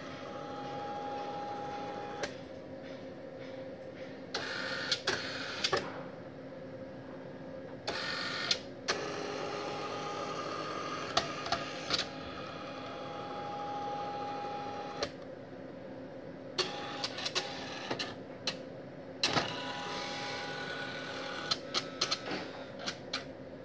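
StorageTek SL48 tape library's robotic picker at work: its drive motors whine in short runs that start and stop, over a steady hum. A quick series of clicks and clacks near the end comes from the picker gripping and pulling an LTO tape cartridge from a slot.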